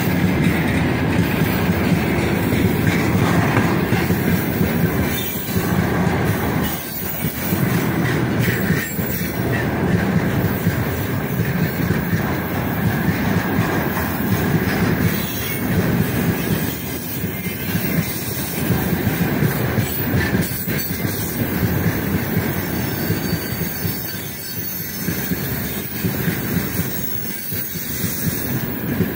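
Heavy freight train's tank cars and gondola wagons rolling past at close range. Steel wheels rumble on the rails and knock in an uneven clatter over the rail joints.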